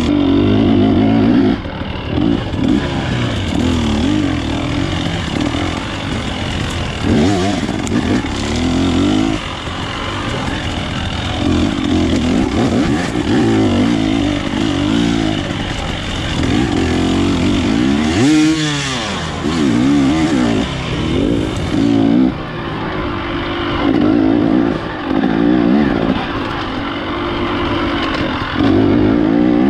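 Dirt bike engine revving up and down as it is ridden, its pitch rising and falling with the throttle every second or two. About eighteen seconds in it drops away and then climbs again.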